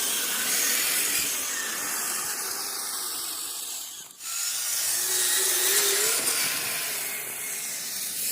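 Radio-controlled crawler trucks' brushed electric motors and gear trains whirring as they drive, with a whine that falls in pitch over the first few seconds and a brief break about four seconds in.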